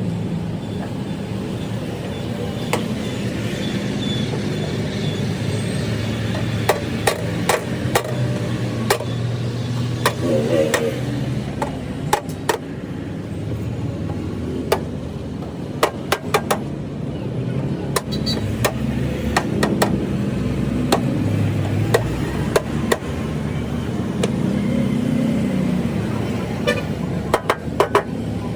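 Irregular sharp metallic taps and clicks, some in quick runs of three or four, from hand tools working on the radiator's metal, over a steady low vehicle engine rumble.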